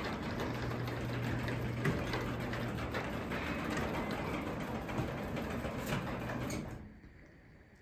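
Craftsman DC belt-drive garage door opener running steadily with a low hum as it opens the door, then stopping about seven seconds in.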